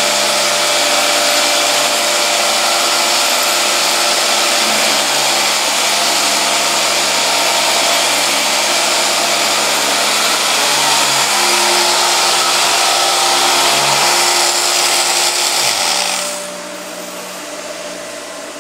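Hand-held electric floor edger sanding hardwood flooring along the baseboard: a loud, steady motor with a rough sanding hiss. About 16 seconds in it shuts off, leaving a quieter steady machine hum.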